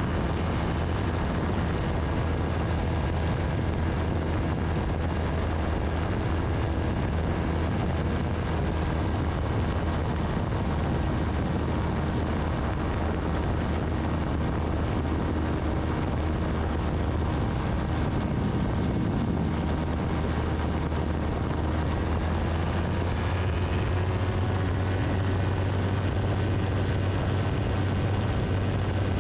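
Single-seat FlightStar ultralight airplane in flight: its engine and propeller drone steadily, over a haze of rushing air. The tone shifts slightly about two-thirds of the way through.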